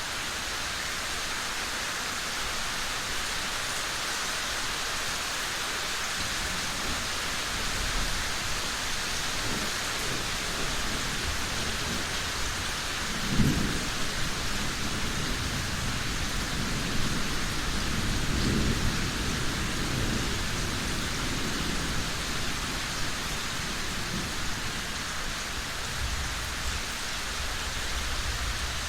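Steady heavy rain with thunder rolling in the distance: low rumbles build about a third of the way in, with a sharper crack near the middle and more long rumbling after it.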